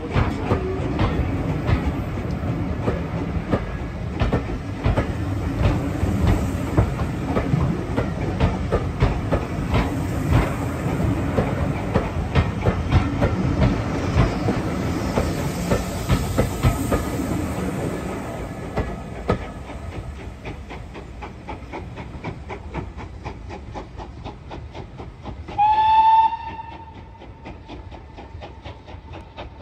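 Steam-hauled passenger coaches rolling past close by, their wheels clicking rhythmically over the rail joints, the sound fading as the train pulls away. Near the end the locomotive, 7812 Erlestoke Manor, gives one short, loud blast on its steam whistle.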